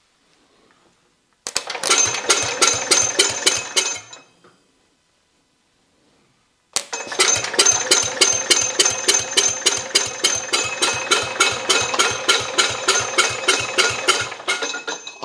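Garden tractor's single-cylinder engine turned over by its starter in two bursts, a short one of about two and a half seconds and then a longer one of about eight seconds, each a steady rhythmic chugging of about five strokes a second that cuts off sharply. The cranking drives the newly installed hydraulic pump to draw fluid out of the tank.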